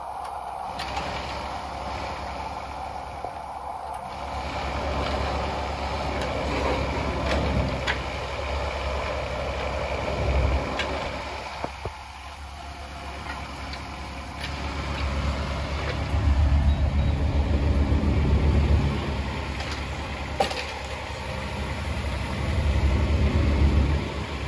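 Bobcat E17 mini excavator's three-cylinder Kubota diesel running, pulling harder and louder in several stretches as the hydraulics work the boom and blade, with a few sharp knocks.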